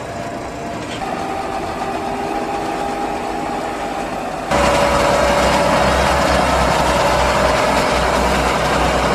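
Large John Deere tractor diesel engines running under load: first a tractor hauling a loaded forage wagon, then, suddenly much louder about four and a half seconds in, an 8R-series tractor with maize levellers working close by, pushing and packing chopped corn silage. A steady whine sits over the engine drone.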